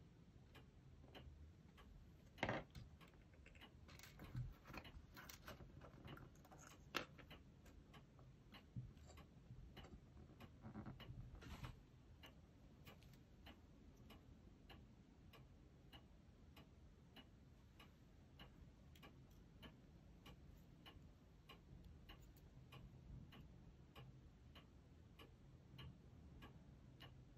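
Near silence with a faint, steady tick about twice a second, and a few louder clicks and light knocks in the first twelve seconds from small parts being handled on the workbench.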